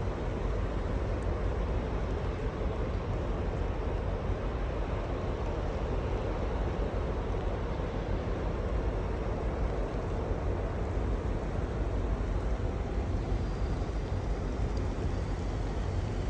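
Steady ambience at a pier beside moored cruise ships: an even low rumble and hiss with a faint continuous hum, unchanging throughout.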